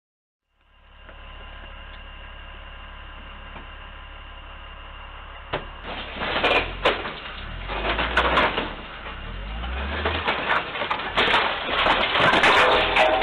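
A steady low hum through a CCTV microphone. About five and a half seconds in, loud irregular crashing, knocking and scraping begins as a front-end loader rams its bucket into a shopfront, growing louder towards the end.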